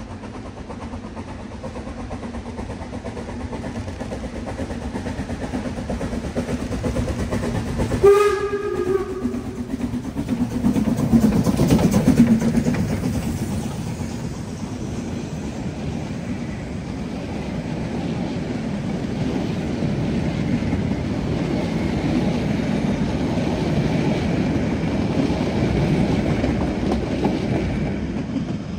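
Heavy vehicle rumbling steadily, with a short horn blast about eight seconds in; the rumble is loudest a few seconds after the horn.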